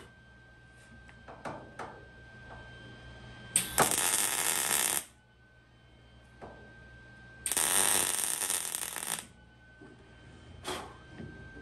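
Lincoln gas-shielded MIG welder laying two short welds, each a crackling arc lasting about a second and a half, filling plug-weld holes in truck bed sheet metal. Small clicks fall between the welds, and a faint steady high tone runs throughout.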